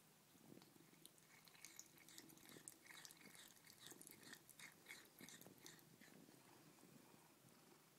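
Faint, quick wet licking of a Bengal cat's tongue on wet hair, close to the microphone, about three or four licks a second through the middle of the stretch, over a low steady purr.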